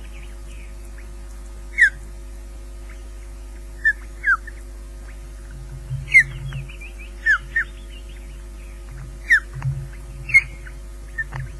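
Osprey calls at the nest: short, sharp whistles that slide downward in pitch, about nine of them at irregular intervals, over a steady low hum.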